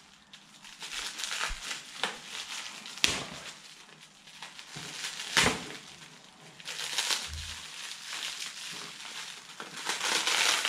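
Plastic wrapping of a small package crinkling and rustling as it is cut and pulled open with a pocket knife, with two sharp clicks about three and five seconds in.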